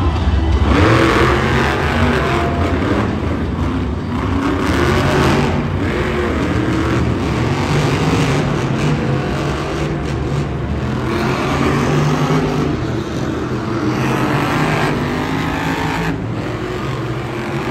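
Supercharged V8 monster truck engines revving up and down again and again over a steady low drone.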